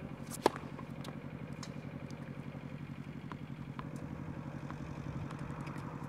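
A tennis racket striking the ball on a serve: one sharp crack about half a second in, followed by a few much fainter pops of ball contact across the court. Under it runs a steady low engine drone with a fast pulse.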